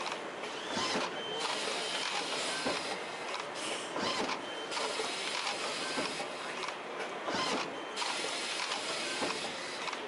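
18-ton all-electric plastic injection molding machine running production cycles: a steady hiss with light mechanical clicks, the hiss thinning out briefly every three to four seconds.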